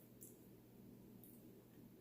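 Near silence: a low steady room hum with two faint, short clicks.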